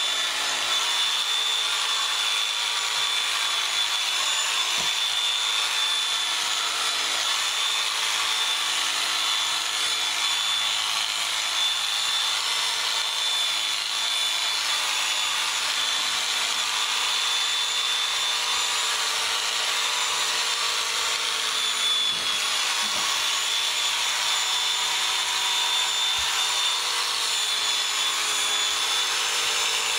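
Electric sheep shears running steadily with a high, constant whine as they cut through a sheep's fleece.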